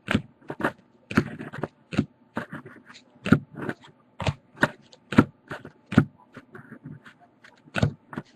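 Trading cards being handled and sorted: an irregular run of short clicks and scrapes, about two a second, as cards slide and tap against each other.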